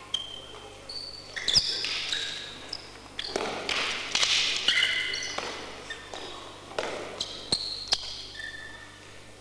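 Sneakers squeaking in short high chirps on a gymnasium floor as two canne de combat fighters move about, with a few sharp knocks and a louder rush of noise midway, echoing in a large hall.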